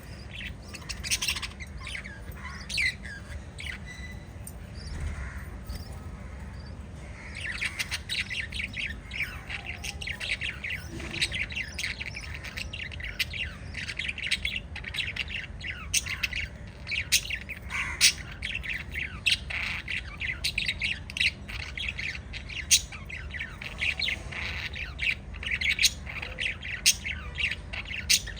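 Several small pet parrots chirping together in a busy stream of short, overlapping chirps and squawks, thinning briefly about four seconds in and growing denser from about seven seconds. A steady low hum runs underneath.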